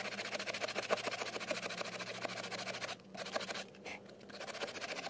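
Hand tool scraping and rasping along the edge of cured fibreglass in rapid continuous strokes, trimming off the ragged edge. The scraping pauses briefly twice near the end.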